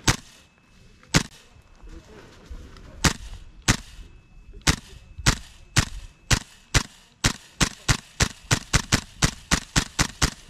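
Tokyo Marui MWS gas blowback airsoft rifle firing single shots, each with the snap of the bolt cycling. The shots start a second or two apart and quicken to about four or five a second in the second half.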